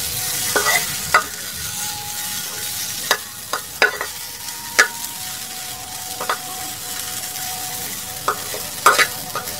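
Sliced okra sizzling in hot oil in a frying pan, stirred with a metal spatula that scrapes and clacks against the pan in sharp, irregular strikes about once a second over a steady sizzle.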